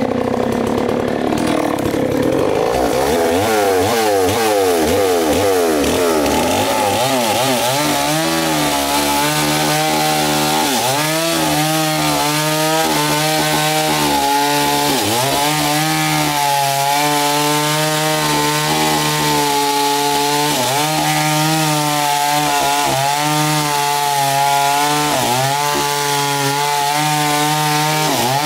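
Nakaya two-stroke chainsaw cutting into the base of a large tree trunk. It revs up and down for the first several seconds, then settles into a steady, loud run under load, its pitch dipping briefly every few seconds as the chain bites.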